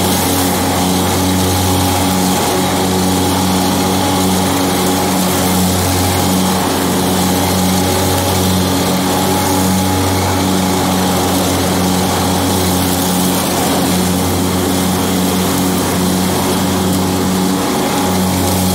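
John Deere X724 garden tractor's engine running steadily while mowing, the mower deck blades spinning and cutting grass.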